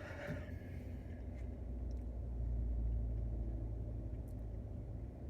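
A low rumble that swells about two seconds in and then eases off.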